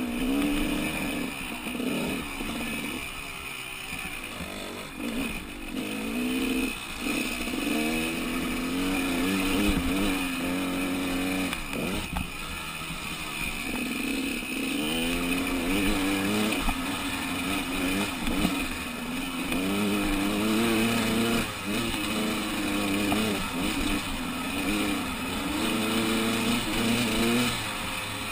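Dirt bike engine heard close up from the bike itself. It revs up and drops back over and over as the rider opens the throttle, changes gear and eases off along a rough dirt track.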